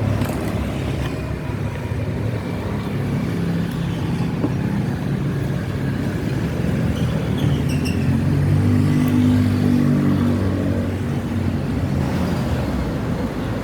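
Road vehicle engine running nearby, a low hum that grows louder about eight seconds in and then eases off again, like traffic passing.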